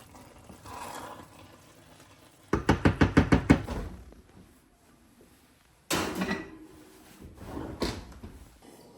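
Cookware clatter from a cast-iron Dutch oven: a quick run of about a dozen ringing metal clanks as the pot is stirred and handled. A sudden bang about six seconds in, then smaller knocks, as the pot goes back into the oven and the door shuts.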